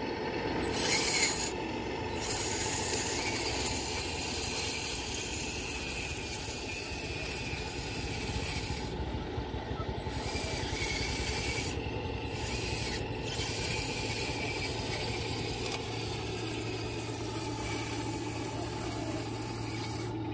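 Hydraulic radio-controlled scale excavator (Kobelco SK350 model) working, its pump and motors giving a steady rasping whir. It swells louder about a second in and again around four seconds in, and the higher hiss cuts out briefly a few times.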